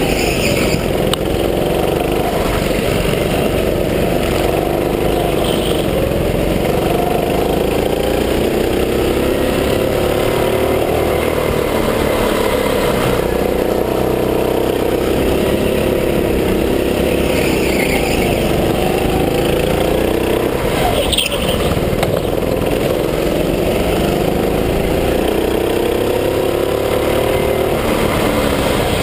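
Gas-powered go-kart engine running at racing speed, its pitch climbing and dropping again and again as the kart accelerates down the straights and slows into the corners.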